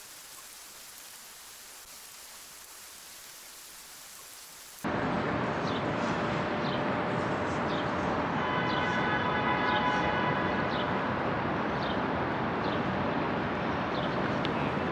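Steady outdoor rushing noise. A thinner hiss cuts sharply about five seconds in to a louder, fuller rush, with scattered faint chirps and a brief pitched tone in the middle.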